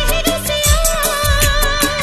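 Background music in Indian film-song style: a wavering melody line over a steady drum beat.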